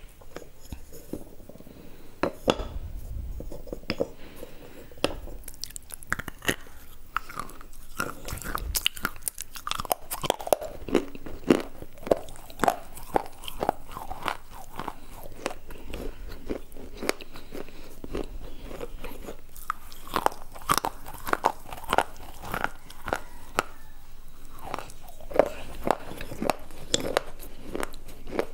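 A person biting and chewing white slate bars close up to a clip-on microphone: many sharp, irregular crunches and crackles, starting a couple of seconds in and growing denser.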